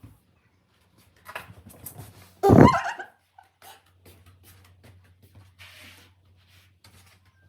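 A dog gives one short, loud, pitched call about two and a half seconds in, among scattered light clicks and rustles.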